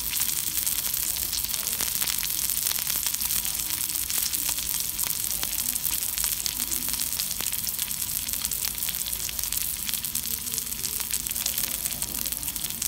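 Two blocks of Olein 55 wagyu beef searing in butter on a hot flat griddle, sizzling steadily with a constant hiss and many small spattering crackles.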